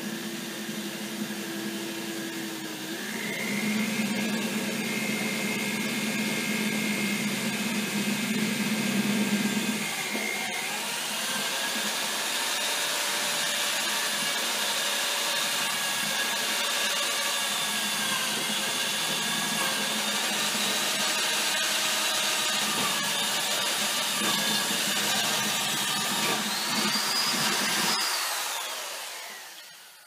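Electric drill with a step bit boring a 3/4-inch hole through an acrylic sheet. The motor whines steadily; its pitch steps up a few seconds in, shifts again about a third of the way through, then falls as the drill spins down near the end.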